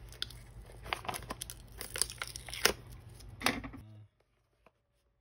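Seal sticker being peeled and torn off the edge of a cardboard earbuds box: a run of crackling rips and sharp snaps. It stops abruptly near the end.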